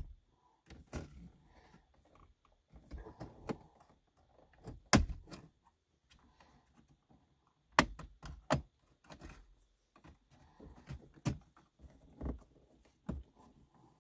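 Plastic dash trim around a car radio being pried loose with a pry tool: scattered clicks, scrapes and rattles with several sharp snaps as its metal retaining clips let go.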